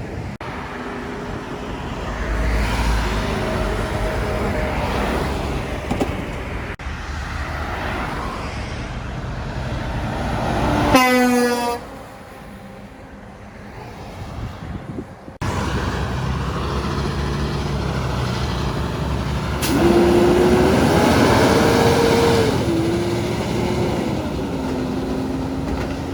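Heavy trucks passing on a highway. One gives a short air-horn blast about halfway through, and a few seconds later a longer horn note that wavers in pitch.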